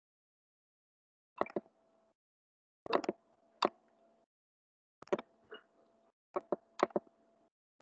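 Scattered sharp clicks of a computer mouse and keyboard, singly or in quick twos and threes, with a faint hum that comes and goes with each group.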